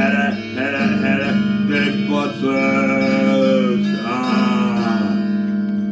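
Music: a song with strummed acoustic guitar and sung notes; the voice stops about five seconds in while the accompaniment holds on.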